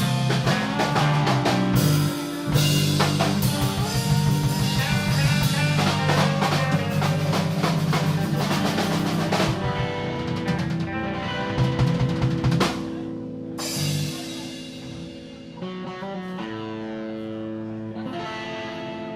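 Live blues band of electric guitar, bass guitar and drum kit playing, with busy drum rolls and fills for about the first ten seconds. The band then thins out after a final hit about two-thirds through, leaving quieter held guitar and bass notes ringing.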